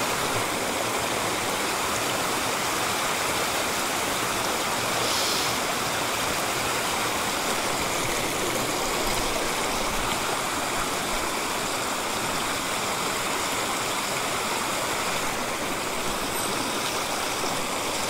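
Small mountain stream flowing steadily, an even, unbroken rush of water.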